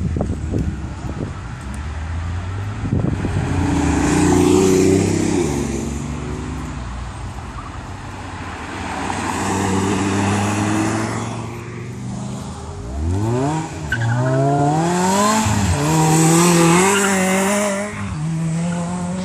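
Supercar engines accelerating hard on a test track. A car's engine note climbs and steps through upshifts around three to six seconds in. About thirteen seconds in, a Lamborghini Gallardo's V10 revs sharply and pulls away, climbing through several quick upshifts.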